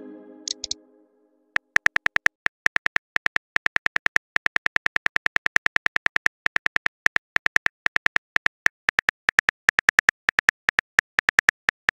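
Phone on-screen keyboard typing clicks, a fast uneven run of short sharp ticks, several a second, as a message is typed out. A fading chime tone dies away in the first second before the typing starts.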